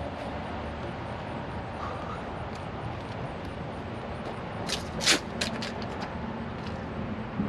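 Steady outdoor rumble with a few sharp metal clanks and knocks about five seconds in, as the steel toolbox and its bolts are worked into place on the truck.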